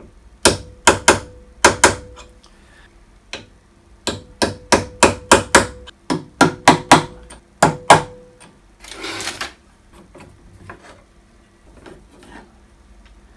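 Hammer tapping transfer punches to mark hole centres through an aluminium bar: about a dozen and a half sharp metallic taps in three quick bursts, with a faint ringing note under them. A short scrape follows near the end.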